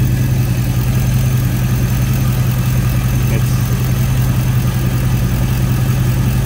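2003 GM full-size SUV's V8 engine idling steadily, with a constant low hum.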